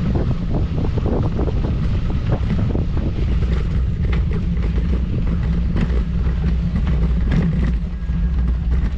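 Wind buffeting the microphone as a loud, steady low rumble, with many short clicks and knocks scattered through it.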